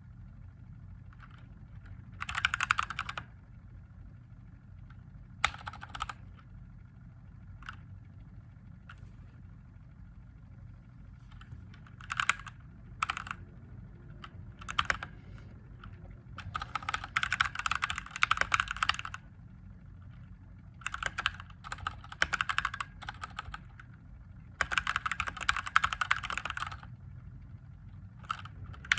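Mechanical keyboard with Gateron Yellow linear switches being typed on, in runs of rapid keystrokes broken by pauses of a second or more. A low steady hum runs underneath.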